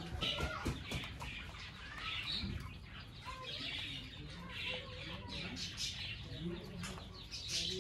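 Chickens clucking in short, scattered calls as they feed on grain, with small clicks among them.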